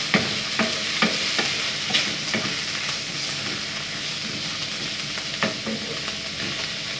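Diced chicken breast, mushrooms and onion sizzling in oil in a frying pan, stirred with a wooden spatula that clacks and scrapes against the pan. The spatula strokes are most frequent in the first two or three seconds, with one more about five and a half seconds in.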